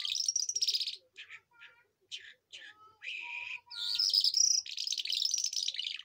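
A caged lark singing: long phrases of rapid, high trills in the first second and again from about four to six seconds in, with short chirps and whistled notes between.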